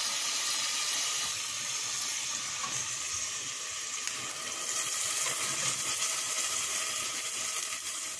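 Hot water poured by the scoopful into a pot of sizzling curry chicken: a steady watery hiss that swells a little in the middle. The water is added so the chicken stews rather than fries.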